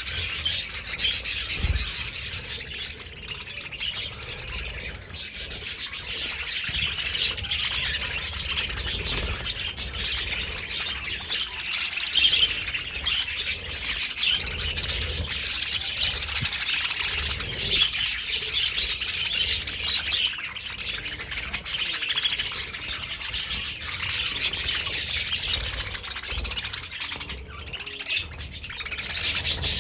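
A flock of budgerigars chattering and chirping, many overlapping warbling calls in a continuous stream.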